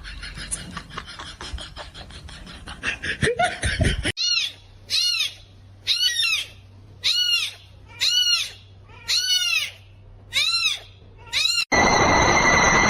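An animal's high-pitched call that rises and falls in pitch, repeated about once a second, eight times in a row. Near the end it cuts suddenly to a loud, steady noise.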